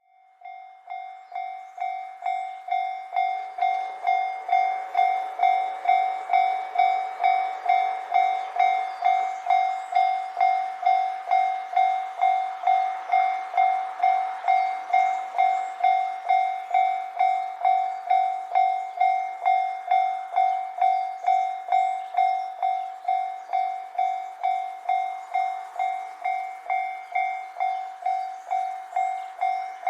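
Japanese level-crossing warning bell ringing steadily at about two strikes a second, growing louder over the first few seconds, over a faint hiss.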